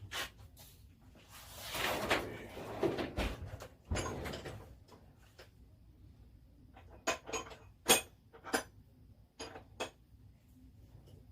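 Hand tools being handled and put down: a sliding, rummaging noise for about two seconds, a knock about four seconds in, then several sharp clicks and clinks of metal extensions.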